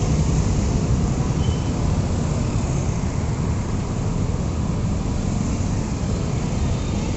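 Road traffic passing close by: motor scooters and cars driving past in a steady, even stream of engine and tyre noise.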